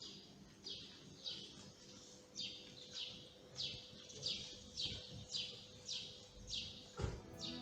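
A bird calling over and over, faint: a short, high, falling note repeated roughly every half second, with one brief pause, over a faint steady hum.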